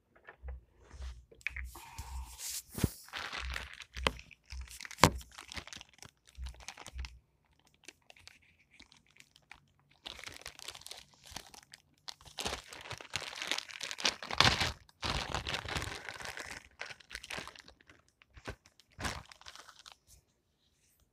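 A plastic bag being crinkled and torn open by hand, rustling in irregular stretches with short pauses, and a sharp snap about five seconds in.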